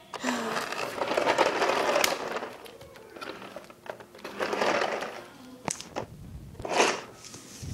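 Handling noise from a pink plastic toy car with a doll in it being moved and pushed about: two long stretches of rustling and scraping, then a short sharp scrape near the end.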